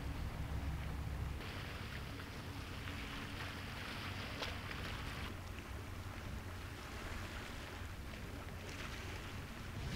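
A low, steady engine drone mixed with wind noise. A hiss of wind or water swells for a few seconds near the middle.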